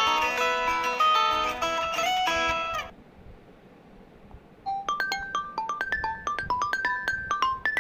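Two MIUI 12 phone ringtones played one after another: a guitar-like plucked melody that stops abruptly about three seconds in, a short gap of faint hiss, then a quick melody of bright, quickly fading mallet-like notes starting near five seconds in.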